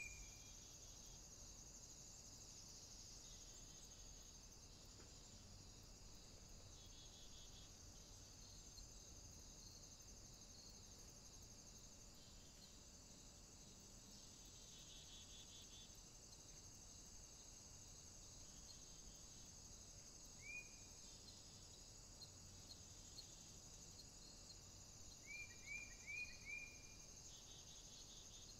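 Faint, steady chorus of insects, like crickets, pulsing at a high pitch, with a single short chirp about twenty seconds in and a quick run of four chirps near the end.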